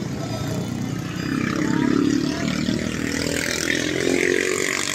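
Motor scooter engine running, its pitch rising about three and a half seconds in as it revs.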